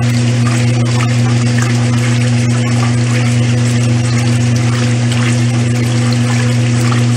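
Old Brastemp Luxo washing machine running, with a steady electric motor or pump hum under rushing, splashing water.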